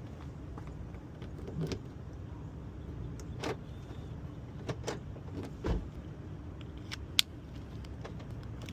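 A handful of short clicks and light jangling of car keys being handled, over a steady low hum.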